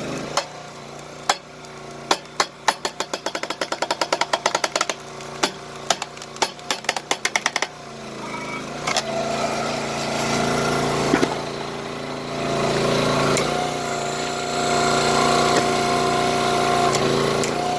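A rapid series of sharp cracks and clicks, about four a second, for the first seven or so seconds. The 22-ton log splitter's small gas engine then runs on steadily and grows louder about two-thirds of the way through.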